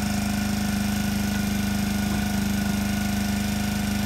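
Small youth ATV engine idling steadily with a fast, even putter.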